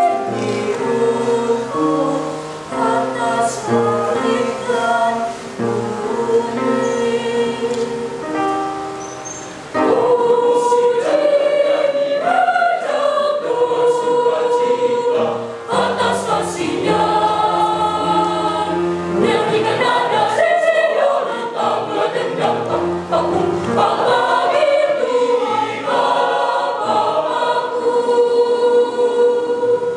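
Mixed youth choir of boys and girls singing a sacred choral piece in parts. The first ten seconds are softer, then the choir comes in louder and stays full, with the singing stopping right at the end.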